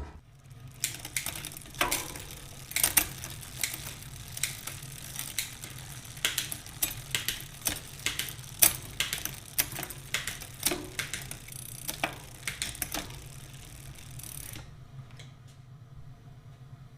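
Irregular mechanical clicking and ticking from bicycle parts being worked on, one or two sharp clicks a second, over a steady low hum; the clicking stops near the end.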